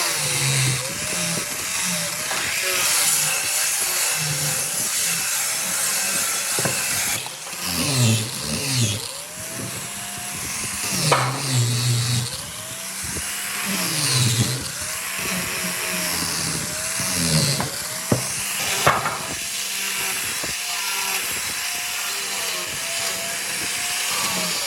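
A woodworking power tool running steadily while cutting wood, its pitch wavering and dipping under load through the middle. Two sharp knocks come near the end.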